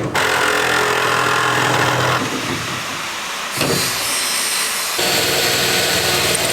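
A power tool running in a workshop. Its sound changes in several stretches, with abrupt shifts about two, three and a half, and five seconds in.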